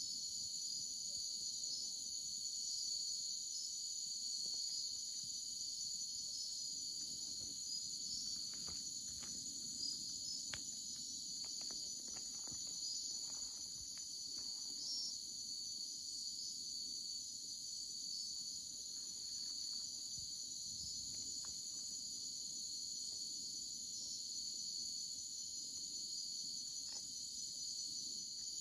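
Night insect chorus of crickets: steady high-pitched trilling in several overlapping pitch bands, with a few faint clicks and rustles in the middle.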